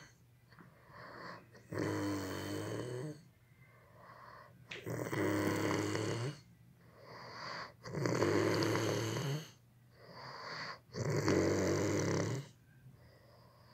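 Loud, rhythmic snoring: four long rasping snores about three seconds apart, with quieter breaths between them.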